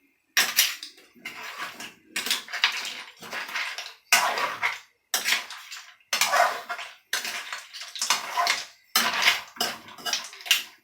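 Utensil scraping and clattering against a pot as food is stirred, in about ten separate strokes roughly once a second.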